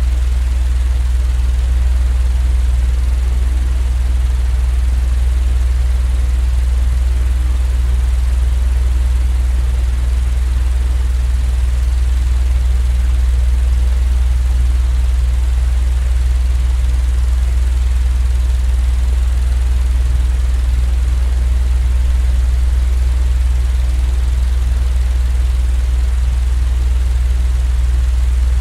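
Electric fan running steadily: a strong low hum with an even hiss over it, unchanging throughout, played as white noise for sleep.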